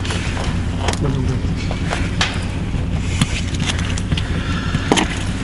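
A steady low mechanical hum, like a motor running, under scattered clicks and knocks of handling, the sharpest about a second in, near the middle and near the end.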